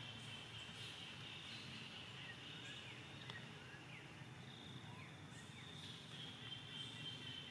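Faint outdoor ambience: a steady high insect drone, with scattered short chirps over a low background rumble.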